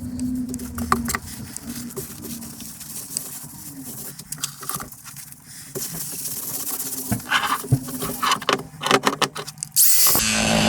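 Small clicks, taps and rattles of metal parts and tools being handled on a workbench, then a power tool starts up sharply near the end and runs steadily.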